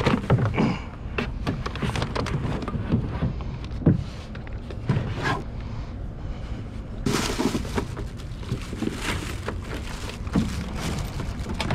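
Low wind rumble on the microphone with scattered knocks and rattles of gear being handled in a small plastic boat; a louder hiss comes in about seven seconds in.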